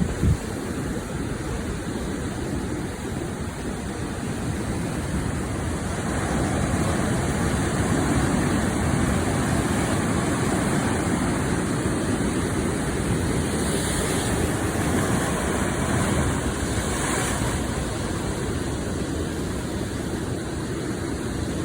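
Sea waves breaking and washing up on a beach: a continuous rushing surf that swells in the middle, with two brief hissing surges in the latter half.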